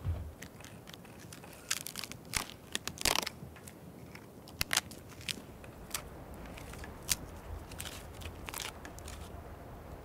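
Dry birch bark being torn and peeled off a dead birch stump by hand: a run of sharp, irregular crackling rips and snaps, loudest about three seconds in.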